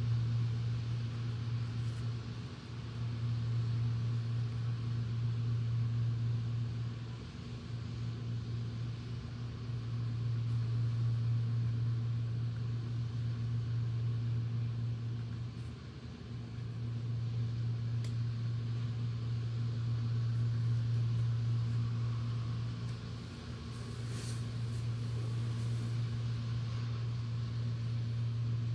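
An electric fan's low steady hum, swelling and dipping every several seconds, over a steady hiss of rain.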